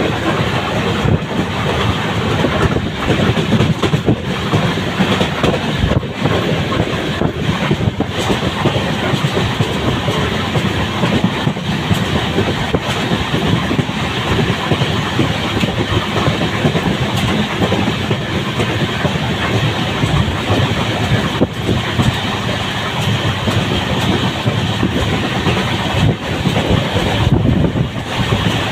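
Express train running at speed, heard from inside a coach: a steady rumble and rattle of wheels on the rails.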